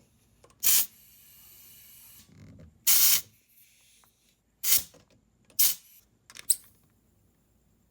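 Compressed air hissing in five short blasts from an air chuck pressed on a tire's valve stem, inflating a freshly plugged tire, with a fainter steady hiss between the first two blasts.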